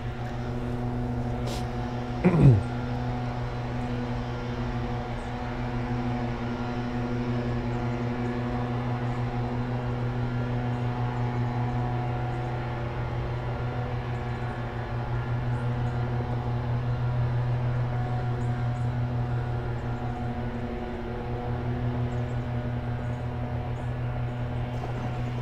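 Steady machine hum, a low drone with even overtones that holds without a break. About two seconds in, a short, loud sound drops steeply in pitch.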